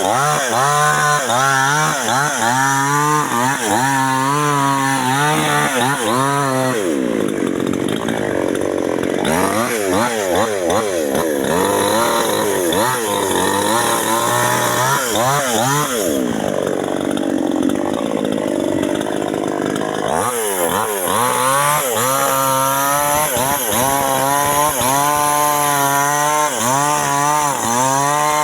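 Chainsaw cutting into a coconut palm trunk, its engine speed rising and falling over and over, with two longer spells of steady high revs about a quarter of the way in and again past the middle.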